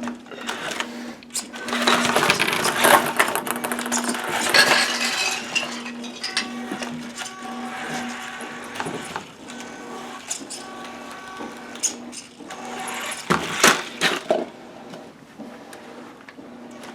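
Electric RC truck's motor whining steadily as it drives, with clatter and a few sharp knocks from the truck hitting obstacles, the loudest about three-quarters of the way through.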